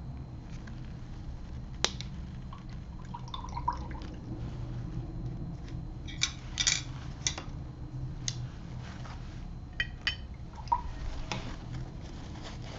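Watercolor brushwork: a paintbrush dipped and tapped in water and on the palette, giving scattered light clicks, taps and small drips over a steady low hum.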